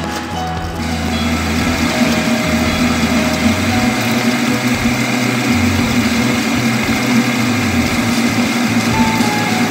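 Metal lathe turning a steel bar, the cutting tool taking a cut with a steady hum and an even cutting hiss that becomes louder about a second in.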